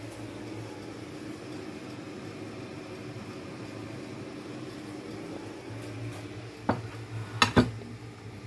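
A steady low appliance hum, then sharp clinks of dishes near the end: one knock and then a quick pair.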